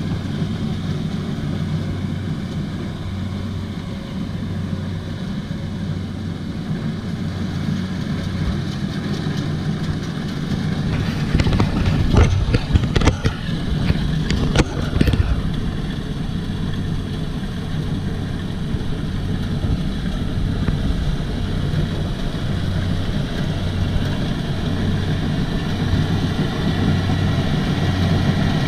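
Kubota DC-70 combine harvester's diesel engine running steadily with a low, even pulsing hum. About halfway through, a few seconds of sharp knocking and clatter rise above it.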